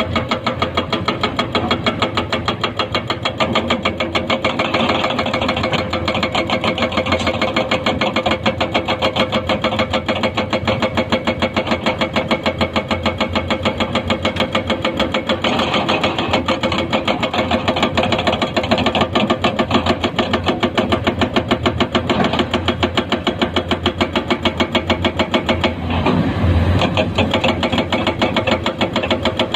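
Diesel engine of a Komatsu PC210-10 hydraulic excavator running steadily with a rapid even pulse, swelling under load every several seconds as it works, and a brief heavier low thump about 26 seconds in.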